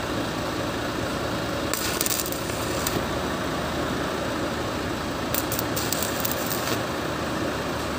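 Stick (arc) welding on a steel frame: the electrode's arc crackles in two short runs, the first starting about two seconds in and the second about five seconds in, each lasting a second or so, over a steady low hum.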